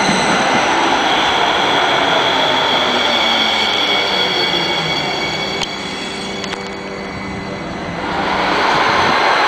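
NJ Transit Hudson-Bergen Light Rail cars running through a station: a steady rumble of wheels on the rails with high, steady whines over it. The sound drops a little about six seconds in and swells again near the end as a car approaches.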